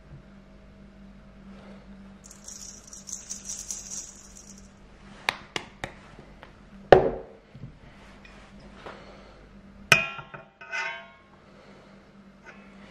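Ground seasoning poured from a small bowl onto raw meat in a stainless steel mixing bowl, a light hiss of falling grains lasting about two seconds. Then come a few sharp clicks and a knock of kitchenware, and later a glassy clink that rings briefly.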